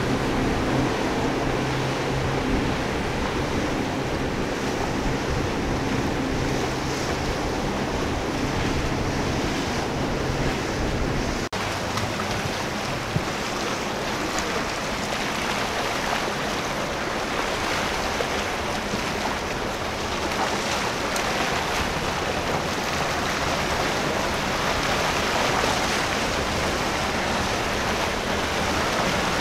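Outboard motors of a center-console fishing boat running steadily as it passes at speed, over the rush of its wake and wind. About a third of the way in the sound cuts to an even hiss of surf and wind with no clear engine note.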